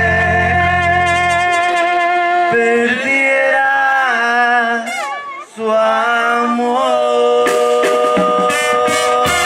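Mexican brass band of trumpets, trombones, clarinets and tuba playing long held chords. About five seconds in the notes slide down and the sound drops out briefly, then the band comes back in on held chords with percussion hits.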